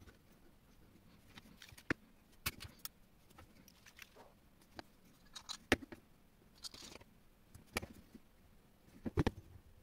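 Small steel parts of a stainless-steel mini crossbow clicking and tapping as they are handled and fitted together: the bow limb and wire string going onto the metal tube. Light, scattered clicks, with a couple of sharper ones about six and nine seconds in.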